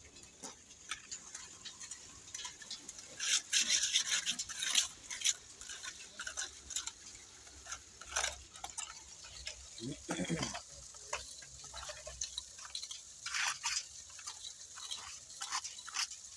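Hand tools scraping and knocking on wet lean concrete and gravel in many short, irregular strokes, with a dense stretch of scraping about three to five seconds in.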